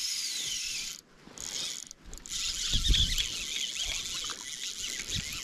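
Fly reel's ratchet drag whirring while a hooked, hard-fighting trout is played. It runs as a whine that rises and falls in pitch for about a second, breaks off briefly, then goes on as a rougher whir with a few low knocks.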